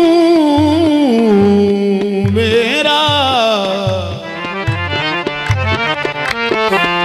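Qawwali music: a singer holds long, wavering notes over a harmonium, with a low hand-drum beat about every three-quarters of a second.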